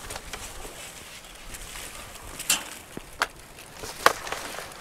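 Rummaging in a dumpster, handling a large box: low rustling with three sharp knocks or crinkles, about two and a half, three and four seconds in, the last the loudest.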